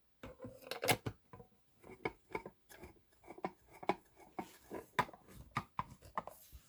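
Irregular clicks, taps and rustles of plastic speaker parts being handled and fitted together, about three a second.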